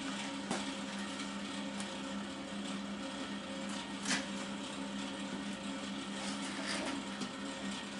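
Steady low machine hum from welding gear, with a few light knocks and clicks as the welding torch and its cable are handled against the steel frame, the sharpest about four seconds in.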